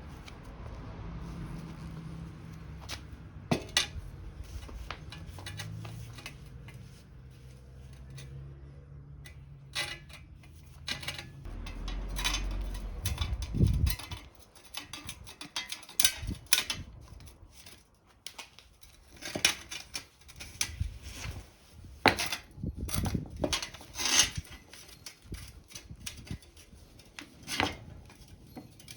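Metal hand tools clinking and knocking against each other and against metal, in irregular sharp strikes that get busier in the second half. A low steady hum runs under the first half and stops about halfway through.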